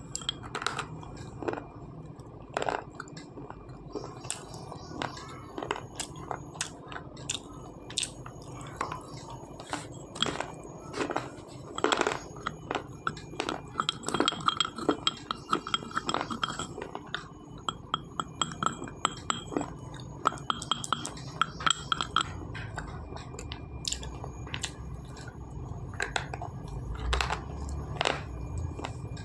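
Crisp crunching as a hard white chalky bar eaten with paste is bitten and chewed: many sharp cracks at an uneven pace, some in quick runs.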